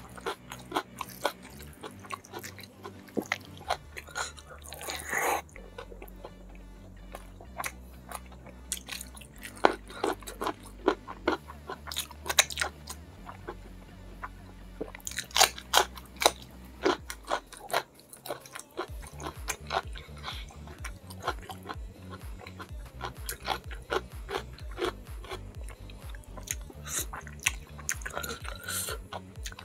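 Close-miked eating sounds: irregular wet chewing, lip smacks and crunches as mouthfuls of rice and fish-head curry are eaten by hand. A low, steady background-music bass runs underneath.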